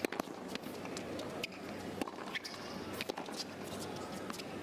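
Tennis rally: sharp pops of rackets striking the ball and the ball bouncing on a hard court, about one every second or so, with the players' footsteps and a steady arena hum beneath.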